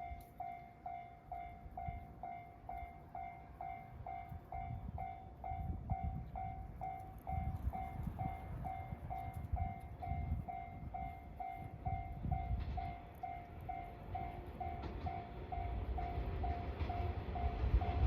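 Japanese railway level crossing warning bell ringing steadily, about two strikes a second, the signal that a train is coming. Under it a low rumble builds toward the end as the train approaches the crossing.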